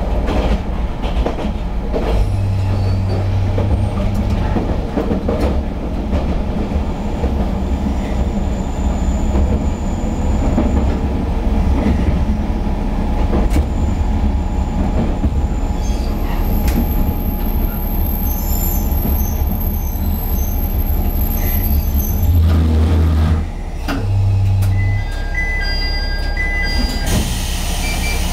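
Nagara River Railway Nagara 305 diesel railcar heard from inside the cab, rumbling along the track and braking into a station, with thin high wheel or brake squeals in the middle. A short burst of air hiss comes near the end as it comes to a stop.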